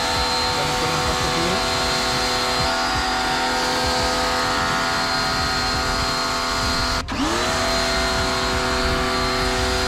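Muc-Off pressure washer's electric pump running steadily with an even whining hum while rinsing with the standard jet. It cuts out briefly about seven seconds in as the trigger is released, then spins back up, rising in pitch, and runs on.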